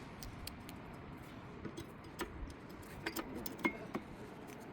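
Light metallic clicks and clinks, a dozen or so at irregular intervals, from tools and small metal parts being handled; the loudest, about three and a half seconds in, rings briefly.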